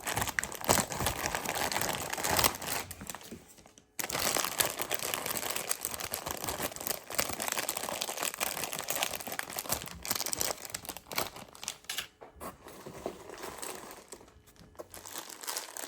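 Plastic packaging crinkling steadily as sealed packs of small toy figures are handled and shuffled. The sound fades out just before four seconds in and starts again abruptly.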